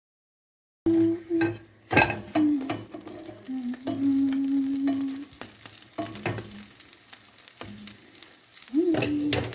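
Food sizzling in a frying pan, with a few sharp utensil clicks and a low humming tone that is held and steps in pitch. It starts suddenly about a second in, after dead silence.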